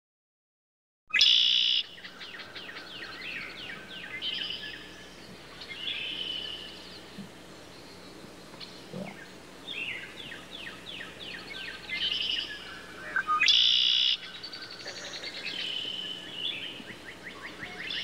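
Red-winged blackbirds singing and calling: rapid series of short down-slurred notes, repeated again and again. Loud bursts of song come about a second in, after a moment of silence, and again just past the middle.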